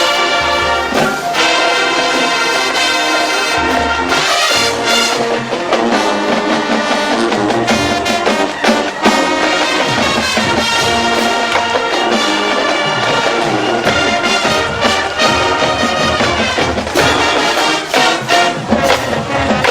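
Marching band playing loudly: brass section of trumpets and trombones carrying the tune over drum hits.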